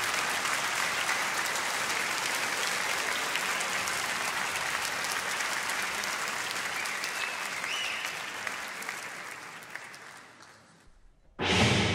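Concert-hall audience applauding, dying away about ten seconds in to a brief hush. Just before the end, the massed brass band comes in suddenly and loudly with timpani.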